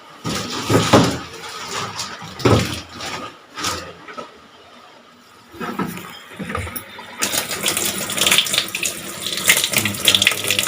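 Irregular knocks and handling noises, then water suddenly starts running about seven seconds in, a steady rush from a tap, as water is let through the newly fitted pipe of a washing machine.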